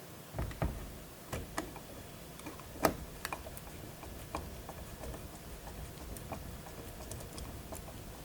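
Screws being driven into a motherboard with a hand screwdriver: scattered light clicks and ticks of the tool and small screws, the sharpest one about three seconds in.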